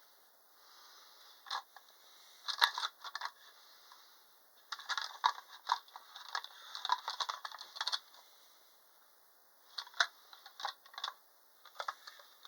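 Irregular clicks, taps and light rattles of small hard objects being handled, coming in bunches with short quiet gaps between them.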